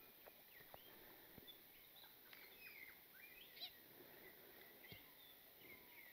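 Faint birdsong: scattered short chirps and whistles from several small birds, with a few soft clicks in between.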